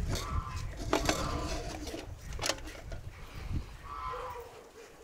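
A farm animal calling twice, short pitched calls near the start and about four seconds in, amid scattered sharp clicks and knocks over a low rumble that fades near the end.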